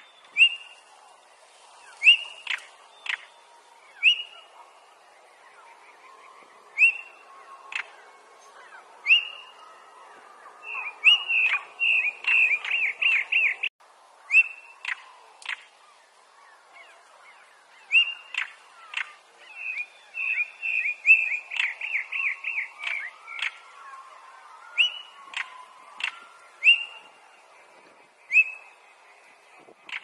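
Male stonechat calling: short rising whistles mixed with sharp ticking clicks. There are two fast runs of repeated notes, about eleven seconds in and again from about eighteen seconds.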